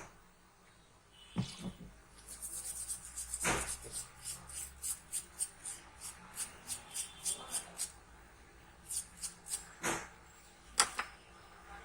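A brush scrubbing an ozone-corroded circuit board with cleaner, in quick short strokes about three a second, with a few sharp knocks as the board and tools are handled.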